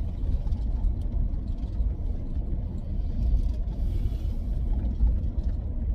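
Steady low rumble of engine and road noise heard inside a car's cabin.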